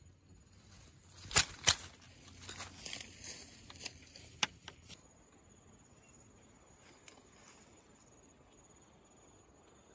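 Dry grass and dead leaves rustling and crackling as they are disturbed, with two sharp snaps about a second and a half in and another near the middle; the rustling stops about halfway through. A steady, thin, high-pitched insect drone runs underneath throughout.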